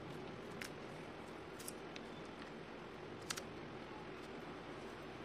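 Sliced onion rings being pulled apart by hand on a plastic cutting board: a few small crisp clicks, including a quick double click a little past the middle, over a faint steady hiss.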